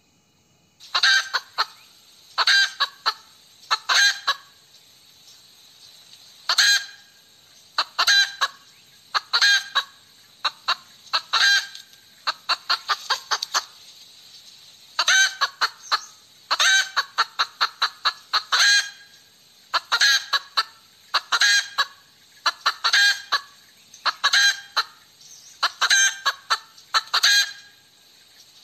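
Hen cackling: loud clusters of short, rapid calls, one cluster every second or two, starting about a second in and keeping on.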